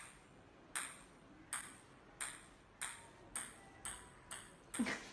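A ping-pong ball bouncing on a tiled floor: about eight sharp, ringing ticks, coming closer together as the bounces shorten.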